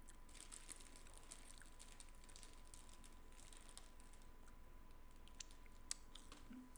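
Near silence: faint clicking and crackling with a steady faint high hum, and one sharper click about six seconds in.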